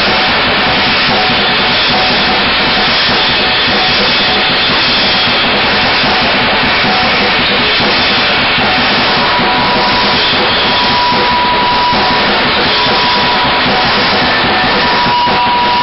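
Loud, dense noise-rock playing: a drum kit played hard with cymbals, under a wall of electric guitar noise from a guitar laid on the floor and worked through effects pedals into an amp. A steady high tone comes in about halfway through and holds.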